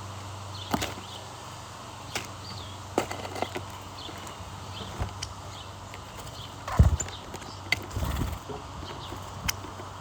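Scattered light clicks and taps, with a louder low thump about two-thirds of the way in and a rougher knocking just after, over a steady low hum; faint short chirps are heard now and then.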